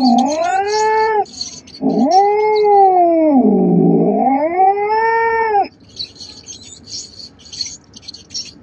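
Cat caterwauling: a yowl that breaks off about a second in, then a long drawn-out yowl from about two seconds to nearly six seconds in, its pitch sagging in the middle and rising again before it stops.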